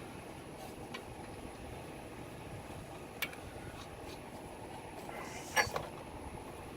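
A steady low hum with two metal sounds over it: a small click about three seconds in, then a louder ringing metal clink near the end. The clinks come from tools and bolts while a car's brake caliper is refitted.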